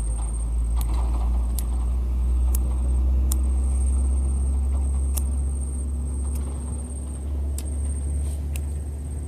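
Low engine rumble of a passing motor vehicle, growing louder over the first few seconds and then slowly fading. Faint sharp ticks recur about once a second.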